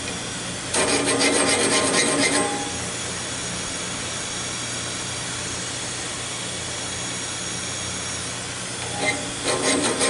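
Air-powered sharpening tool grinding the teeth of a sawmill bandsaw blade: a burst of rapid rasping strokes about a second in lasting under two seconds, then a steady hiss, with the rasping starting again near the end.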